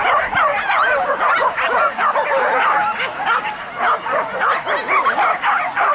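A pack of boar-hunting dogs barking and yelping all at once, many short wavering cries overlapping without a pause.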